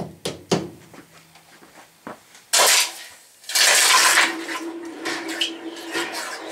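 A few light metal clinks, then a red-hot carburized mild-steel vise jaw quenched in a galvanized bucket of water: a short loud hiss about two and a half seconds in, then a longer sizzle from about three and a half seconds that slowly eases off. The quench hardens the carbon-rich surface case.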